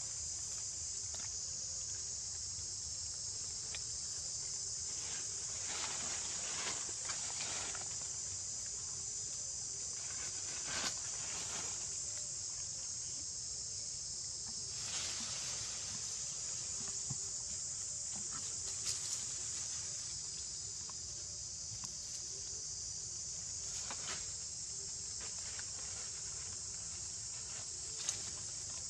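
Steady, high-pitched insect chorus with a few brief soft rustles scattered through it.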